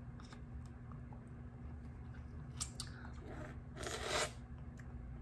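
Biting and crunching on a frozen homemade popsicle of electrolyte drink: scattered sharp crunches, a quick cluster a little before the middle, and a louder burst of crunching noise about four seconds in.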